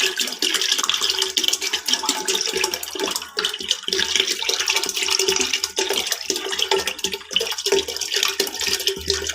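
Milk pouring in a continuous stream from a 1.5-litre plastic bottle into a cooking pot.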